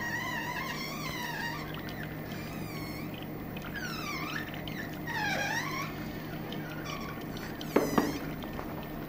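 Small electric screw oil press running with a steady hum while it crushes apricot kernels. High, wavering squeals come and go over the hum, and two sharp knocks sound close together near the end.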